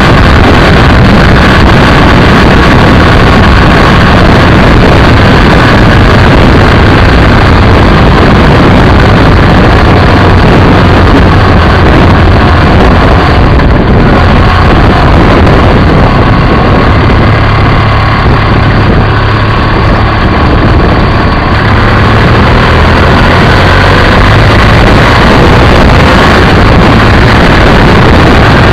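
BMW F800ST motorcycle's parallel-twin engine running at road speed under heavy wind rush on the low-mounted camera, loud and constant. The rush eases for several seconds around the middle as the bike slows, then the engine note climbs again as it accelerates away.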